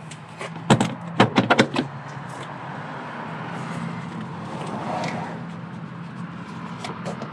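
Rapid sharp clicks and knocks of hard engine-bay plastic trim being handled and pried at, about a second in, then a steady low hum.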